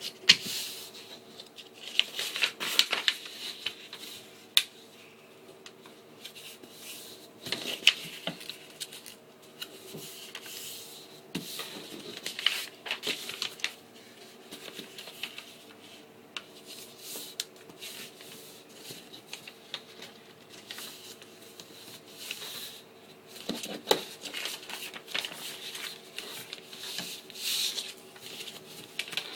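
A sheet of paper being folded and creased by hand: irregular rustling and crinkling with sharp snaps as folds are pressed, over a faint steady hum.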